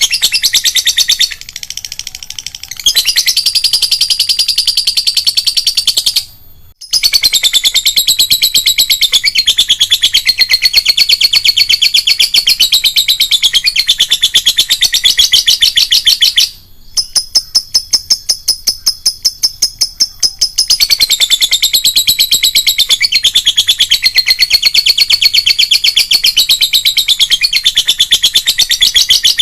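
Lovebird's long, shrill chattering song (the 'ngekek panjang' prized in contest birds): a very fast run of notes, many a second, held for many seconds at a time with brief breaks near the start, about six and a half seconds in, and about sixteen seconds in.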